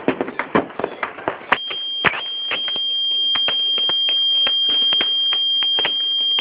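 Fireworks crackling and popping in quick, irregular strokes. About a second and a half in, a steady high-pitched tone starts suddenly and holds, slowly growing louder, while the pops carry on under it.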